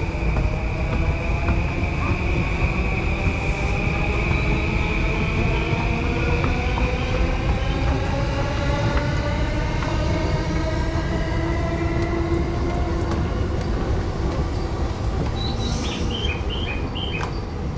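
Electric train pulling away and gathering speed: the motor whine rises steadily in pitch in several tones over a steady low rumble of wheels on rails. A few short high beeps come near the end.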